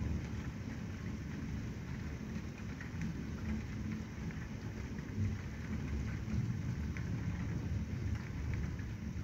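Rain falling steadily, with scattered drop ticks, over a low, continuous rumble of thunder.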